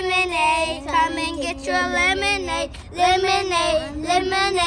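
A child singing a lemonade-stand song in short sung phrases, with a brief pause about three seconds in.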